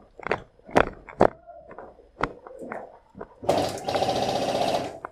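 A few sharp knocks, then about a second and a half of rapid continuous fire from an airsoft MP5 electric replica on full auto, cutting off abruptly.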